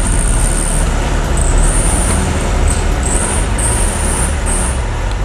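The air-cooled flat-four engine of a classic Volkswagen Beetle running, a steady low rumble.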